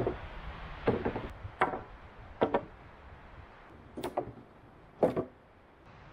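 Wooden poles knocking against one another and the log frame as they are laid onto a platform: about five hollow wooden knocks roughly a second apart, one a quick double.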